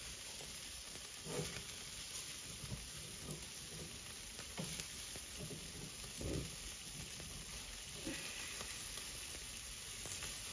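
Chicken, sausages and chops sizzling on a charcoal grill grate over hot coals, a steady hiss, with a few soft knocks as tongs move the meat.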